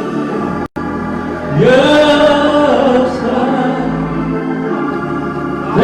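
Slow gospel chorus sung with long held notes over sustained instrumental backing, the word "side" drawn out near the middle. The sound cuts out for an instant just under a second in.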